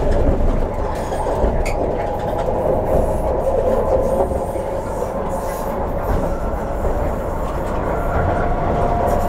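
MTR CNR Changchun C-stock EMU running between stations, heard from inside a motor car fitted with IGBT-VVVF traction equipment. There is a steady rumble of wheels on rail, with a faint steady hum over it.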